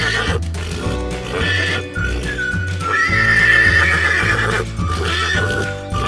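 A recorded horse whinny sound effect over background music with a steady bass beat; the whinny is loudest about halfway through, a high wavering call lasting a second or more.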